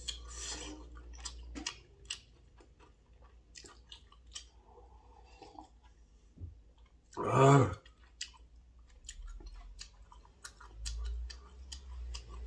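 Close mouth noises of a person eating: chewing with quick wet clicks and smacks. About seven seconds in, just after a drink of broth from a bowl, comes one short, loud, throaty vocal sound.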